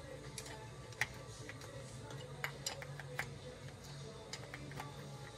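Scattered light metallic clicks and taps from a dirt bike's front brake caliper being worked apart by hand as a part is loosened and pulled free, over faint steady background music.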